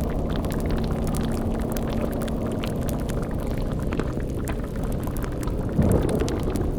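Layered spooky sound-design ambience: a steady low rumble and drone, with fire-like crackling and liquid bubbling like a boiling cauldron throughout. A louder low surge about six seconds in.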